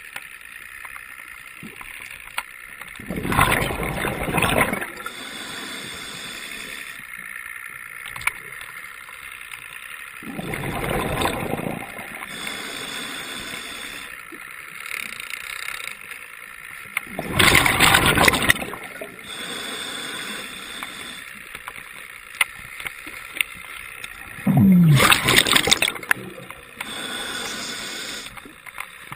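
Underwater sound picked up through a GoPro's housing: a steady low hiss, broken four times, about seven seconds apart, by a loud rushing surge of water noise lasting a second or two.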